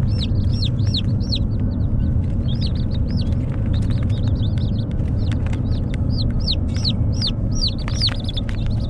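A bin of young Icelandic chicks peeping, a few high chirps a second, each rising then falling in pitch, over a steady low rumble.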